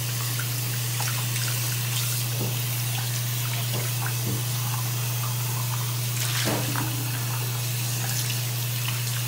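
Water running from a bathroom faucet into a sink while a plastic toothbrush holder and soap dish are scrubbed and rinsed, with scattered small knocks and clicks of the plastic against the basin. A steady low hum runs underneath.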